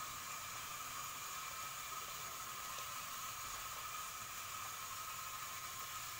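Steady background hiss with two faint, constant high-pitched tones running under it; nothing starts or stops.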